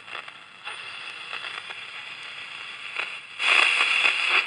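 Philips AE1595 pocket radio's speaker hissing and crackling with static while tuned between stations. About three and a half seconds in, the static suddenly grows louder.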